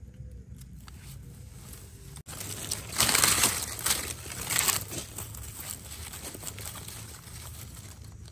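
Dry forest leaf litter rustling and crunching, starting abruptly about two seconds in and loudest for a couple of seconds, then lighter rustling.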